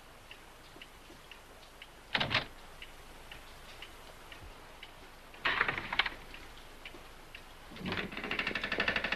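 A clock ticking steadily, about two ticks a second. Three louder noisy sounds break in about two seconds, five and a half seconds and eight seconds in; the last is longer, with a rapid flutter.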